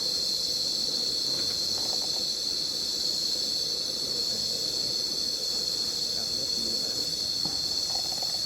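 Forest insect chorus: a steady, unbroken high-pitched buzz.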